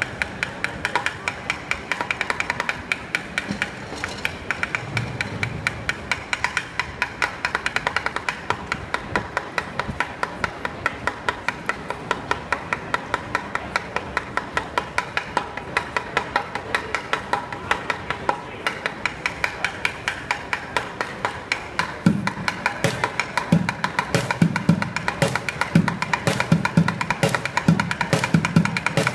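Drumsticks playing upturned plastic buckets as drums: a fast, steady stream of sharp stick strikes on the bucket rims and sides. About three quarters of the way through, deeper booming hits on the bucket heads join in and the playing gets louder.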